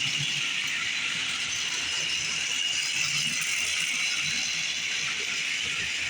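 Plarail battery-powered toy trains running on plastic track: the small motors and gearboxes whir steadily, with the wheels rattling over the track.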